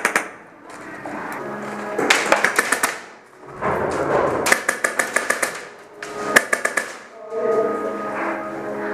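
Airsoft guns firing in three short rapid bursts of about ten shots a second, the last one brief.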